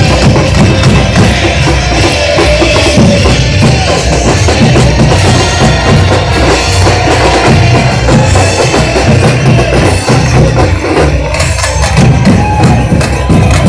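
Carnival batucada drum section playing a loud, dense, steady samba-style rhythm on bass drums and snare drums.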